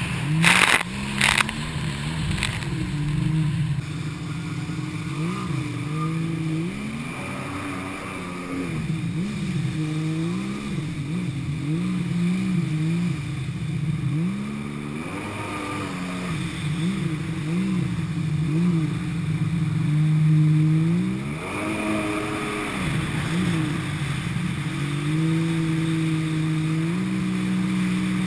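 Jet ski engine heard from on board, its pitch rising and falling again and again as the throttle is worked on and off through the turns, over the rush of spray and water against the hull. Loud splashes in the first second or so; the engine is at its loudest about twenty seconds in, then holds a steadier, higher pitch near the end.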